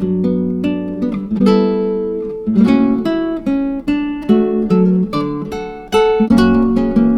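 Background music: acoustic guitar plucked and strummed, with ringing pitched notes.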